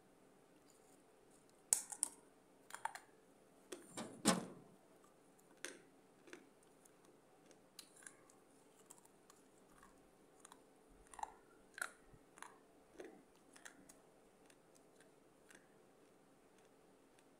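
Pieces of baked clay pot bitten and crunched close to a microphone: irregular sharp cracks and crunches, the loudest cluster about four seconds in, then sparser, softer crunches with a lull in the middle.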